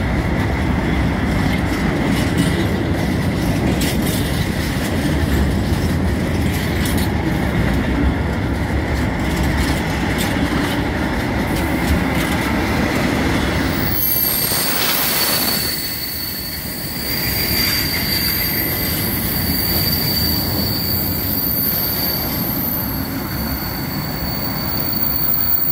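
Loaded freight train of covered hopper wagons, about 2000 tons, rolling past close by with a low rumble of wheels on rails. About halfway through the rumble falls away and a high, steady wheel squeal takes over.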